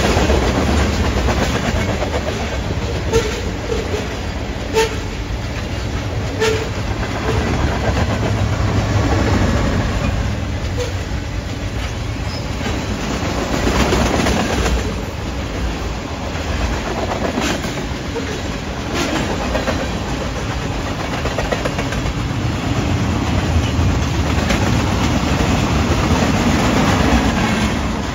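Freight train rolling past, a steady heavy rumble with the wheels clicking now and then over rail joints.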